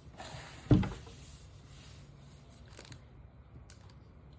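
Trading card box and foil packs being handled: one sharp thump under a second in, then faint rustling and a few small clicks.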